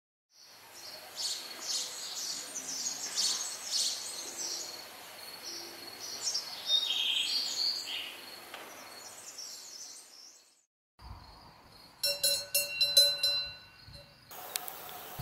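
Many birds chirping and calling outdoors. About eleven seconds in there is a short silent break, then the sound cuts to another stretch of outdoor ambience with a few steady high tones and clicks.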